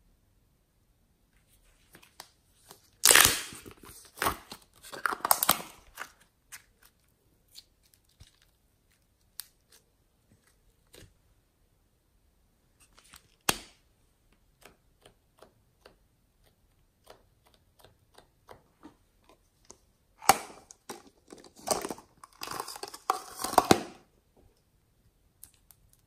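Hands handling slime-making supplies on a tray: scattered small clicks and taps of plastic pens and caps, with short crinkling, tearing bursts about three seconds in, around five seconds, once near the middle, and a longer run from about twenty to twenty-four seconds in.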